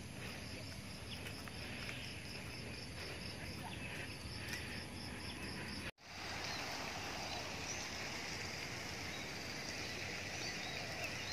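Outdoor ambience of insects chirping over a steady hiss: a high, evenly repeated chirp for the first half, then after a sudden cut a noisier stretch with scattered faint chirps.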